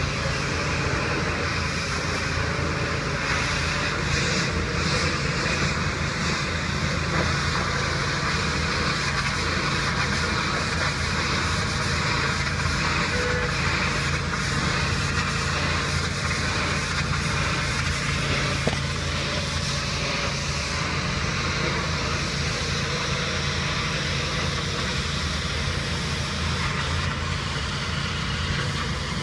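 Pressure washer running steadily: a constant motor hum under an even hiss.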